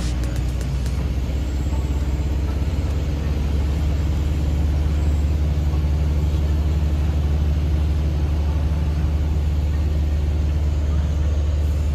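Single-engine piston light aircraft's engine droning steadily at an even pitch.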